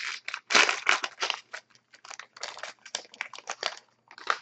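Crinkling and rustling of a trading card pack's wrapper as it is handled and opened, in quick irregular bursts that thin out near the end.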